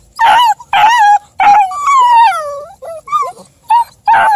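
Black-and-tan beagle-cross hound puppies giving a string of short, high yelping calls, with one longer call about a second and a half in that slides down in pitch.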